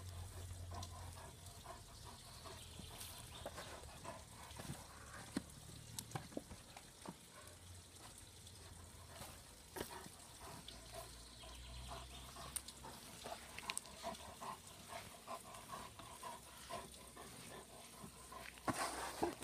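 German shepherd digging in loose soil with its front paws: uneven scratching and scraping of earth, with scattered sharp ticks of clods and grit.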